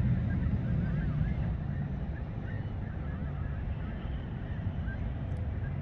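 Geese honking, many short calls overlapping, over a steady low rumble of wind and background noise.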